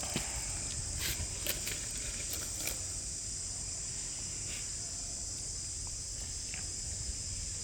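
Insects chirring in a steady high-pitched drone. A few short clicks and rustles sound in the first three seconds, with one more about seven seconds in.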